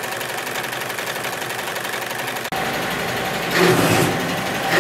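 Multi-needle embroidery machine stitching at a fast, even rhythm. About halfway through it gives way to a sewing workroom, where a sewing machine runs louder twice near the end.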